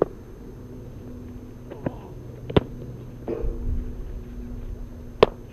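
Sharp cracks of a cricket bat striking the ball in the nets, four in all, the loudest about two and a half seconds in and near the end, over a steady low hum.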